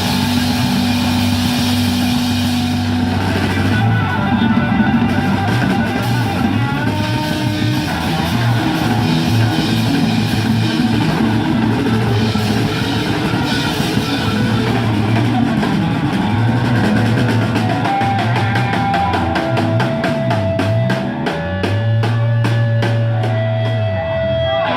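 Rock and roll band playing: drum kit keeping a steady beat under guitar and stepping bass notes, the drum strokes coming faster and denser in the second half.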